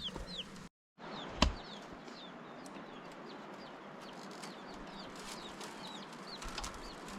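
Birds chirping: short, falling chirps again and again over a steady background hiss. The sound cuts out completely for a moment just before a second in, and a single sharp click follows.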